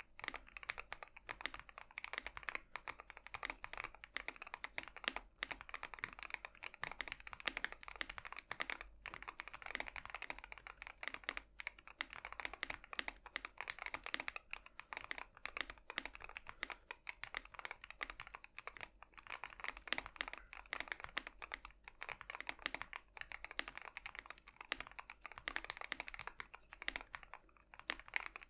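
Continuous fast typing on a Tofu60 60% mechanical keyboard with Gateron Cap Yellow linear switches, O-ring mounted with switch pads: a dense, unbroken stream of keystroke clacks.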